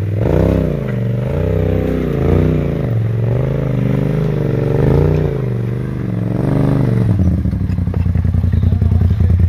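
Side-by-side buggy engine revved up and down in repeated blips, about one a second, as the buggy climbs over rocks. About seven seconds in it settles to a steady low idle.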